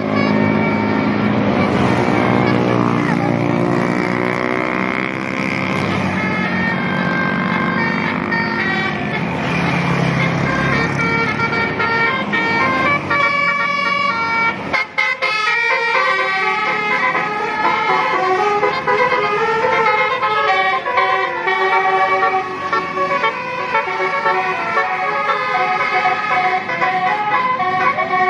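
Basuri (telolet) multi-tone musical vehicle horns playing melodies together, the notes changing in steps. In the first half a heavy engine rumble and gliding tones lie under the horns. After a sudden break about fifteen seconds in, the horn tune runs clearer.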